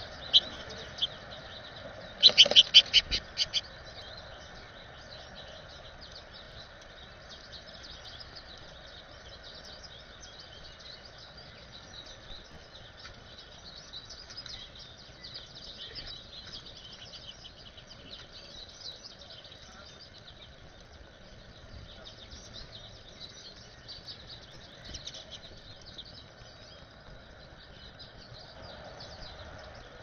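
Small birds chirping and twittering throughout over a steady outdoor background hiss. About two seconds in comes a quick series of loud sharp clicks close to the microphone.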